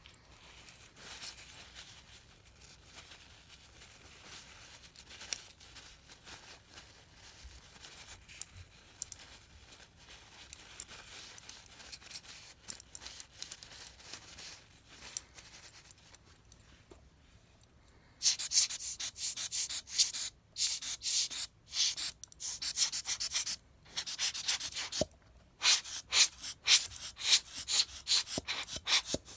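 Fast back-and-forth rubbing or sanding strokes on a hard part, in spells of a few seconds with short pauses, starting about two-thirds of the way in. Before that there is only faint handling and scraping.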